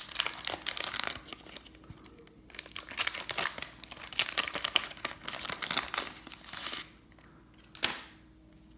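Wax paper wrapper of a 1983 Fleer baseball card pack being torn open and crinkled, in two long stretches of crackling, with one short crackle near the end.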